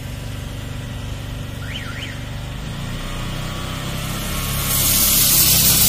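Single-engine high-pressure drain jetter running with a steady low drone; about four and a half seconds in, a loud hiss comes on as the water jet builds through the sewer dredging nozzle.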